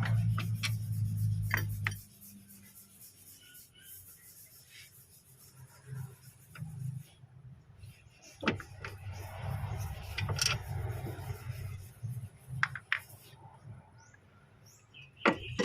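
A low steady drone that cuts off about two seconds in, then scattered clicks and knocks of tools and parts being handled during work on a fuel filter housing.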